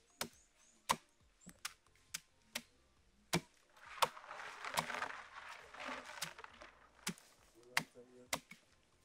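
Sharp wooden knocks at an uneven pace, about one or two a second: a wooden stick striking nuts by hand to crack their shells. A couple of seconds of rustling noise about four seconds in is the loudest part.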